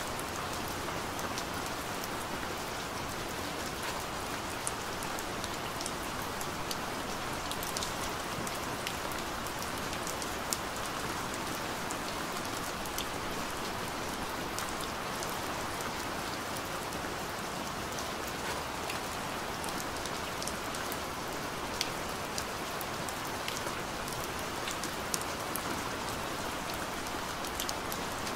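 Steady hiss sprinkled with many small irregular ticks, rain-like in character.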